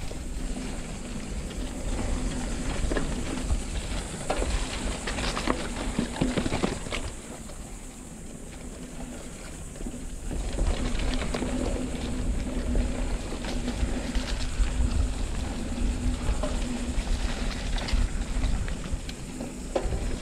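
Santa Cruz Chameleon hardtail mountain bike ridden over a dirt trail: a steady rumble of tyres and wind on the microphone, with frequent rattles and clacks as the bike goes over bumps and roots. It eases off for a moment about eight seconds in, then picks up again.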